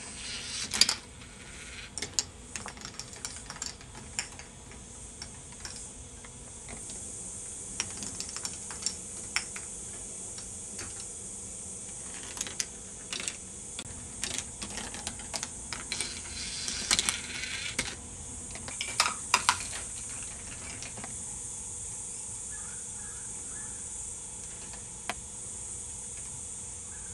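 K'NEX ball machine running: plastic balls and plastic track, lift and gear parts clicking and clattering in irregular bursts. The clicks come thickest near the start and through the middle, over a steady high hiss.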